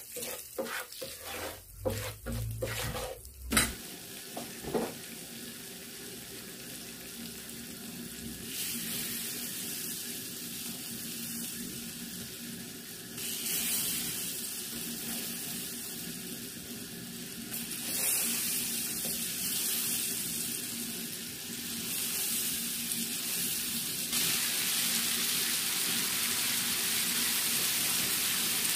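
Mackerel steaks frying in hot turmeric-spiced oil in a nonstick pan, the sizzle getting louder in steps as more pieces are laid in. A few quick spatula strokes in the oil at the start.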